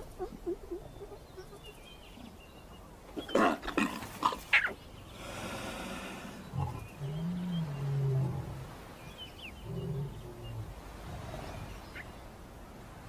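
Lionesses snarling in a few sharp outbursts about three and a half to four and a half seconds in, then low, drawn-out growls, as they attack a young lion cub.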